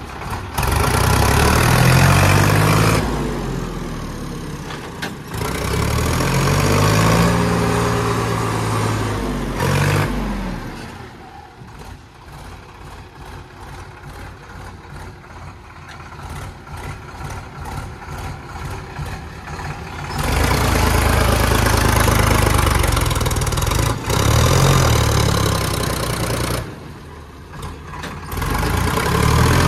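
Sonalika DI 35 tractor's diesel engine revving hard in repeated bursts, each rising and falling in pitch, and dropping back to a ticking idle in between, with a long stretch of idling in the middle.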